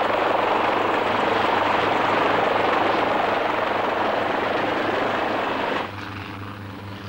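Helicopter in flight: a loud, steady noise of rotor and engine over a low hum. Near the end it drops suddenly to a quieter, lower hum.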